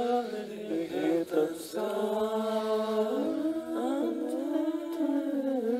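Tenor section of an amateur choir singing an imitative passage a cappella on an early sing-through: several male voices holding notes, with pitches sliding uncertainly into place.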